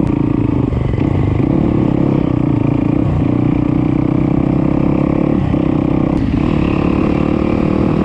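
Yamaha YZ250F single-cylinder four-stroke dirt bike engine running under throttle while riding, heard from on the bike; the engine note holds steady and dips briefly several times as the throttle eases.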